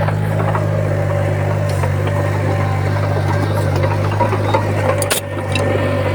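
Heavy diesel engine of an earthmoving machine running steadily, with a low hum and a steady higher whine. A sharp click comes about five seconds in.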